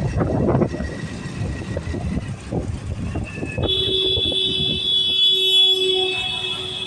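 Hero Splendor motorcycle's single-cylinder four-stroke engine running, its exhaust pulsing steadily. About halfway through, a steady high-pitched tone joins and holds almost to the end.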